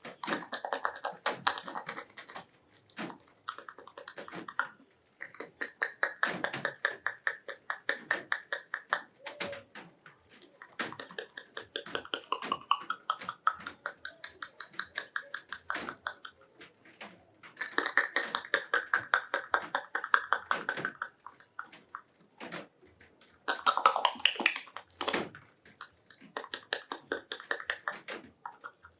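Wet mouth smacks and kissing-like clicks, made with a little water in the mouth and a small water bottle as a homemade love-scene sound effect. They come in rapid runs of a few seconds with short breaks between them.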